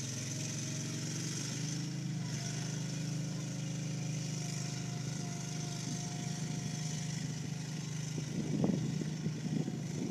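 The engine of an amphibious rigid inflatable boat running steadily as the boat drives on its wheels across the sand. Near the end, gusts of wind buffet the microphone.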